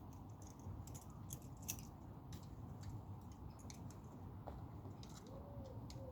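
Small clicks and rustles from rummaging through a fishing tackle bag, scattered and irregular, over a steady low background rumble.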